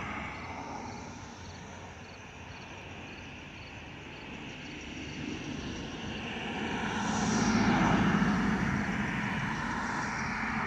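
Jet noise from a JetBlue Airbus A320-200's IAE V2500 turbofan engines as the airliner climbs out overhead, a steady rumble and hiss. It swells to its loudest about eight seconds in, with a brief falling whine, then eases slightly.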